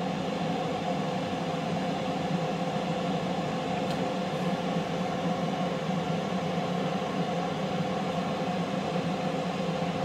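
Power XL air fryer running mid-cook at 370 °F: the steady whir of its fan, with a low hum.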